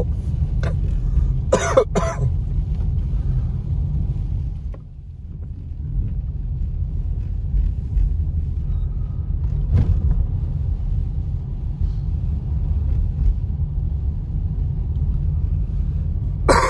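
Inside a moving car: steady low rumble of the engine and tyres on wet pavement, dipping briefly about five seconds in. A short sharp burst, like a cough, comes about two seconds in, and another comes at the very end.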